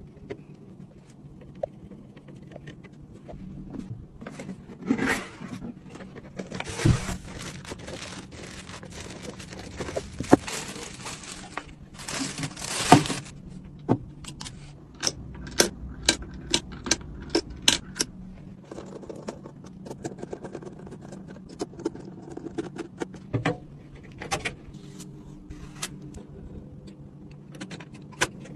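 Computer parts and hardware being handled during a PC build: scattered sharp clicks and small metallic rattles, with several stretches of rustling or scraping and a quick run of clicks in the middle, over a low steady hum.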